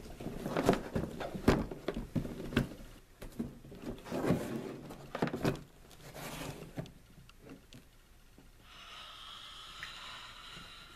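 Cardboard box being handled and opened: irregular knocks, scrapes and rustles of the lid and packing, dying down after about seven seconds.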